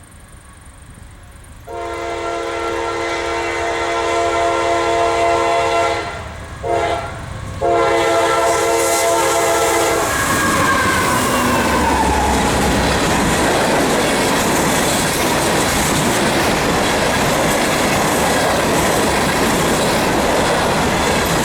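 CSX train's air horn sounding for a grade crossing: a several-note chord starting about two seconds in, broken twice by short gaps and ending about ten seconds in. The train then passes close, with loud steady wheel and rail clatter.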